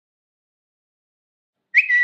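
Twitter notification sound: a short two-part electronic chirp, a quick upward slide followed by a brief lower note. It comes in near the end, after silence.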